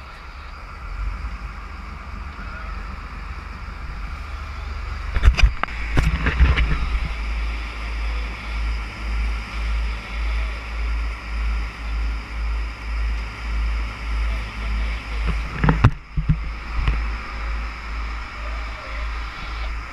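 Sport-fishing boat under way: engine drone and rushing water, with a deep rumble pulsing about twice a second. A few sharp knocks come near the middle and again past three-quarters.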